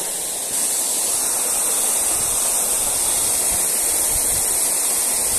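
Steady rushing of river water, a little louder from about half a second in.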